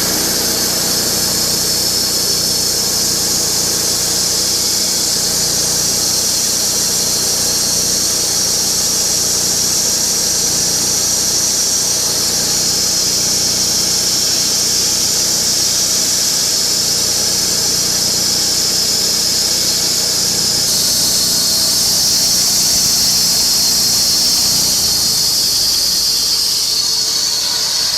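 Portable band sawmill (Vallee Green Monster Wide) cutting through a very wide log: the engine runs under load while the new Lenox band blade makes a steady, high, squealing hiss. The hiss gets a little louder about three-quarters of the way through.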